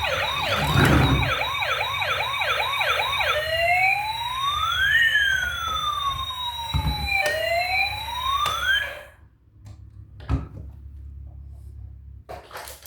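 Electronic toy vehicle siren: a fast warble for about three seconds, then a slower rise-and-fall wail in two crossing tones, cutting off suddenly about nine seconds in. A few faint knocks follow.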